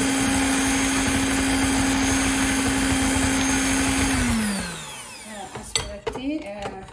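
Electric hand mixer running steadily at speed, its beaters whipping homemade cake cream in a glass bowl. About four seconds in it is switched off and its whine falls in pitch as the motor spins down, followed by a few sharp knocks.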